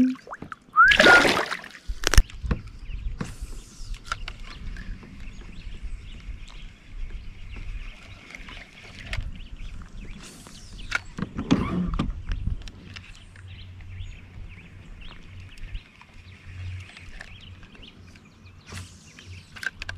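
Water splashing at the side of a kayak about a second in, then a sharp knock on the hull. After that, quieter sloshing and small knocks against the kayak, with another rush of water near the middle.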